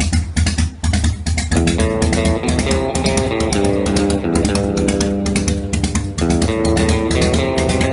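Rock music with bass and a fast, steady drum beat; a melodic guitar line comes in about a second and a half in.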